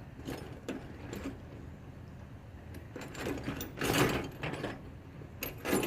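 Quarter-inch hand ratchet clicking in short bursts while small bolts are worked on a Chevy 305 V8 engine block, with clinks of metal tools.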